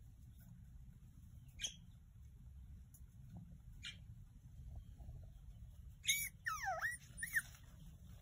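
Young puppies squeaking: a couple of brief high squeaks, then near the end a burst of whimpering whines that swoop down in pitch and back up.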